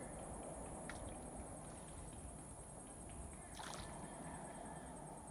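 Faint steady outdoor background noise, with a small click about a second in and a short rustling noise a little past the middle.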